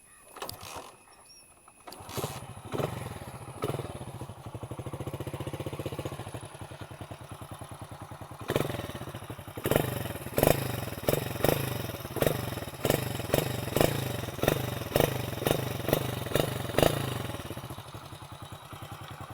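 Hero Honda Splendor's single-cylinder four-stroke engine catches about two seconds in and idles, then is blipped on the throttle over and over, about one rev every half second, before settling back to idle. This is the sound through a new steel silencer that is still free of carbon, which the owner finds a little changed and expects to return to normal once carbon builds up.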